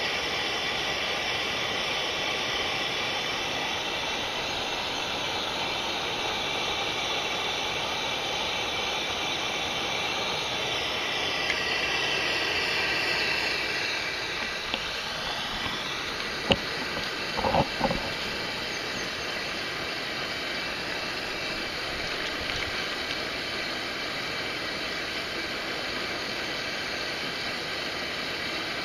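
Steady rushing of flowing stream water, with a sweeping swell passing through about halfway and a few sharp knocks a little later.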